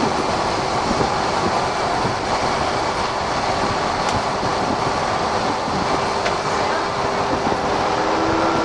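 VDL SB120 single-deck bus under way, heard from on board: steady engine and road noise with a few faint clicks. A steady hum comes in near the end.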